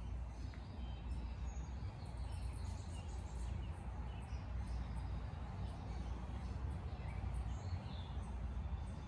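Outdoor backyard ambience: a steady low rumble, with small birds chirping faintly and often throughout.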